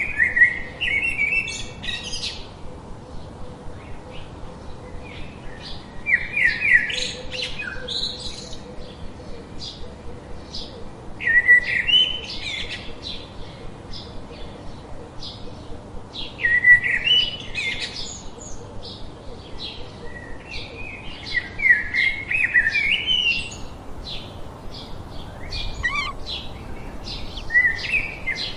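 A songbird singing a short phrase of quick, jumbled high notes about every five seconds, with brief high chips from other birds between the phrases.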